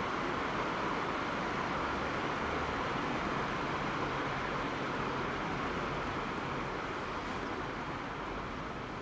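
River water rushing steadily over shallow rapids and stones, a continuous hiss that eases a little near the end.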